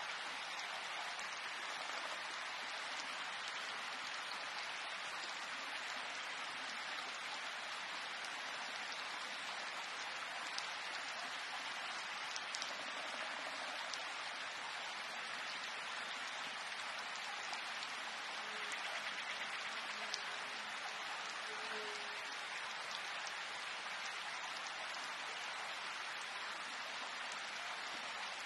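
Steady rain falling: an even hiss with a few distinct drops ticking now and then.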